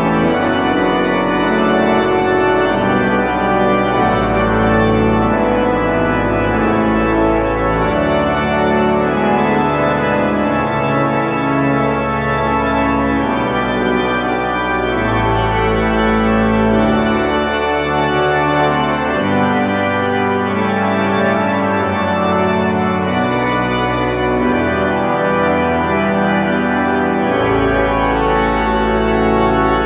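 Pipe organ playing loud, full sustained chords over deep bass notes that change every second or two.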